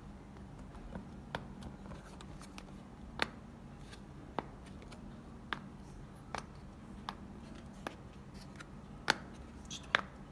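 Small plastic-and-glass round blind-spot mirror and its cardboard box being handled: a dozen or so light, sharp clicks and taps at irregular intervals as fingers press and turn the mirror.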